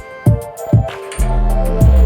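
Background electronic music with deep bass notes and drum hits; a bass note slides downward in pitch in the second half.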